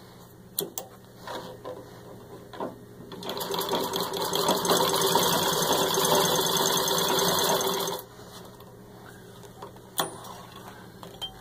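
1923 Singer 127 vibrating-shuttle sewing machine, treadle-driven, stitching through six layers of denim for about five seconds, starting a few seconds in and stopping suddenly. A few light clicks come before it starts, and one sharp click follows near the end.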